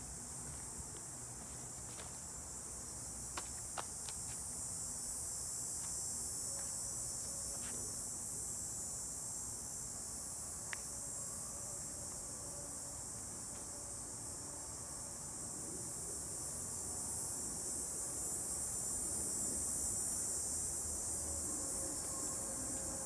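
Steady, high-pitched drone of an insect chorus, with a few faint clicks near the start and about halfway through.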